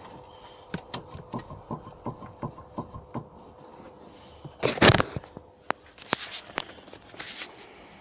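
KYB Ultra SR struts knocking: a run of sharp knocks about three a second, a louder thud about five seconds in, then a few more scattered knocks. The struts have started to knock after seven months of use.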